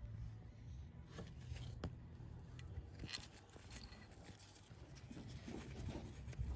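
Faint clicks and light scraping of small metal parts as new diesel glow plugs are started by hand into the cylinder head, over a low steady hum.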